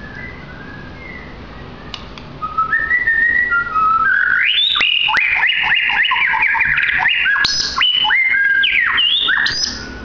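White-rumped shama (murai batu Medan) singing: a few soft whistles, then from about two and a half seconds in a loud, fast run of clear whistled notes with quick rising and falling slides, which stops just before the end.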